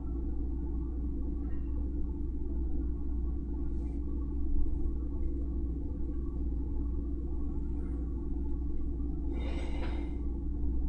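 Steady low hum with background noise, a few faint ticks, and one short hiss-like noise about nine seconds in.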